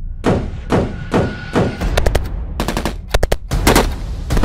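Rifle gunfire: single shots about a third of a second apart, then quick bursts of automatic fire in the second half.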